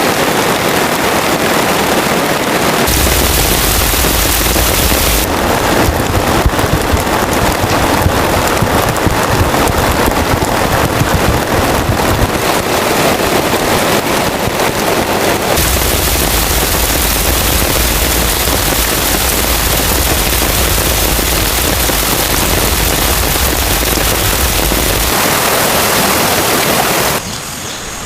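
Heavy rain pouring down, a loud, dense hiss. Its character shifts abruptly a few times, with a low rumble in some stretches, and it drops quieter about a second before the end.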